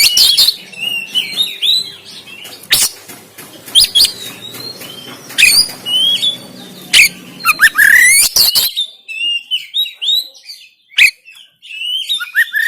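Oriental magpie-robin singing loudly: quick, varied whistled and chirped phrases broken by sharp, harsh rasping notes. A faint low hum in the background stops about two-thirds of the way through.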